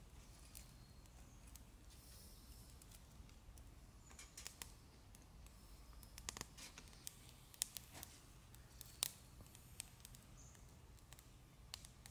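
Near silence with scattered faint sharp clicks and ticks, two sharper clicks in the second half.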